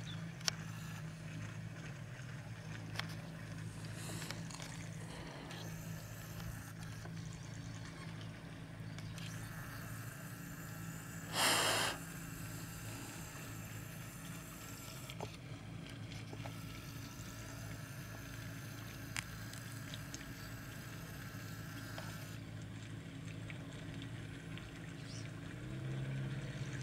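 Boat motor running steadily, a low hum that grows louder near the end as the boat comes close. A brief loud rushing noise about eleven seconds in.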